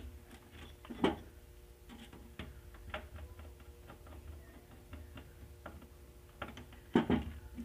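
Small irregular clicks and ticks of a screwdriver turning a terminal screw on a modular switch to clamp a wire. There is a sharper click about a second in and a louder knock near the end.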